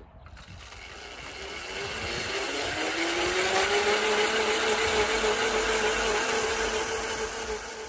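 Electric walk-behind cultivator, its motor fed through a frequency converter, running up with a whine that rises in pitch over the first three seconds or so and then holds steady while the tines dig through the soil.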